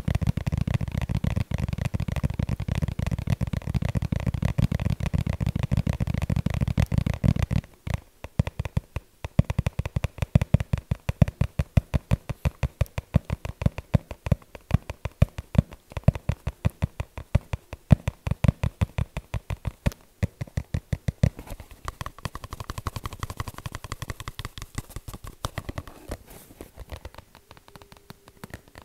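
Tapping: very rapid and dense for the first seven seconds or so, then separate sharp taps at about four a second, then softer, quicker taps that fade near the end.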